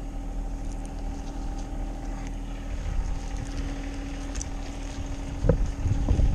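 Steady low engine hum with wind rumbling on the microphone and a few light clicks; a single louder knock about five and a half seconds in.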